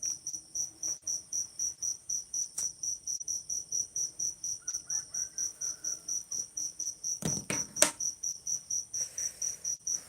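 Cricket chirping steadily in high-pitched, evenly spaced pulses, about four to five a second. A faint click comes a few seconds in, and a sharper, louder knock comes near the end.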